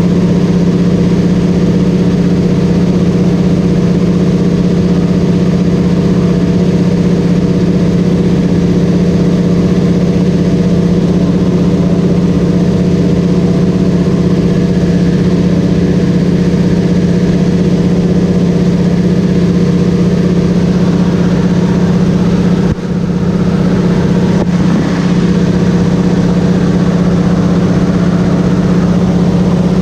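Single-engine light aircraft's piston engine and propeller running steadily in flight, heard inside the cabin as a loud, even hum with a strong low tone. Late on the sound briefly dips twice.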